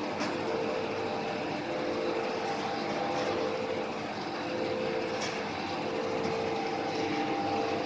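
Plastic film squeezer (screw-press dewatering machine) running steadily under load as wet shredded plastic film is fed in: a continuous mechanical drone with a steady pitched hum and a couple of light clicks.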